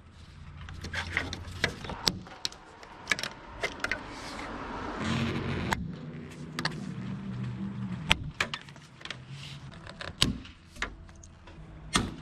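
Plastic roof moulding being pried and pulled up off a car roof: a run of sharp clicks and snaps as its retaining clips let go. A low hum rises under it for a few seconds midway and again near the end.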